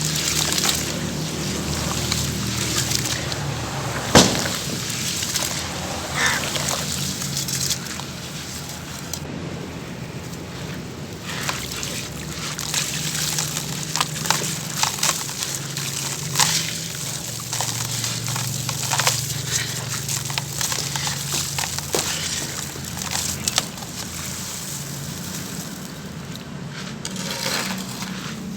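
Crumbly charcoal pouring and crunching: a continuous gritty crackle with scattered sharp clicks, the loudest about four seconds in.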